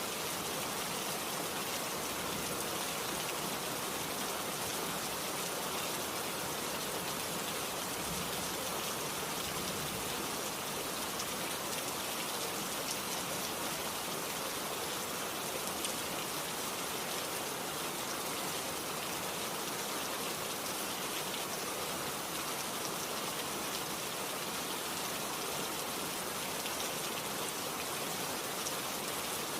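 Steady rainfall, an even hiss of drops falling on surfaces with faint individual drop ticks, holding level throughout.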